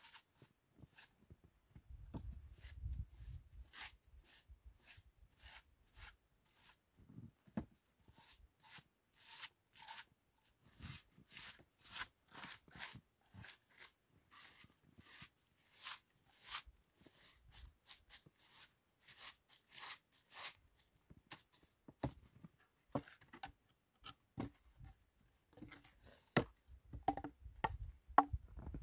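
Twig broom sweeping snow off stacked firewood in quick repeated brushing strokes. From about three quarters of the way through, wooden pieces knock and thud as they are moved on the pile.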